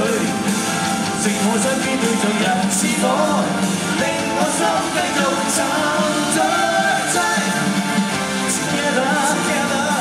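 Live rock band playing with a lead vocalist singing, guitars, drums and cymbals through a concert PA.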